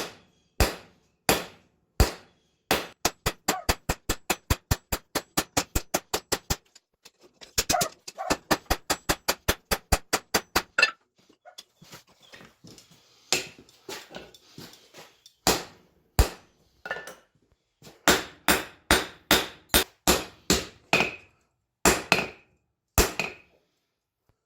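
Hammer blows on a hot bar of 5160 spring steel on an anvil as it is forged square. The first blows come singly, about a second apart. Then come fast, even runs of about five blows a second, a few lighter scattered strikes, and another run of blows near the end.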